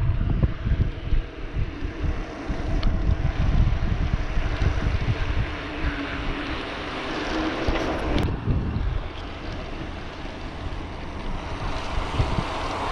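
Wind buffeting the microphone of a camera on a moving bicycle, over tyre and road rumble. There is one sharp knock about eight seconds in.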